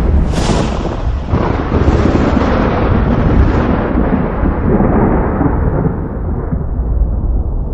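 Thunder: a sharp crack about a third of a second in, then a long rolling rumble that loses its brightness and grows deeper as it fades.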